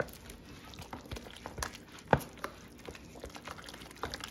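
Wooden spoon whipping mashed potatoes in a plastic bowl: brisk stirring with irregular light clicks and knocks of the spoon against the bowl, one louder knock about two seconds in.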